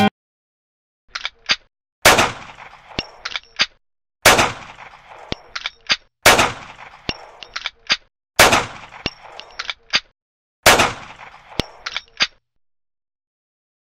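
Sound-effect gunfire with added reverb and echo: two small clicks, then five single shots about two seconds apart, each ringing away and followed by two or three light metallic clinks like spent shell casings landing.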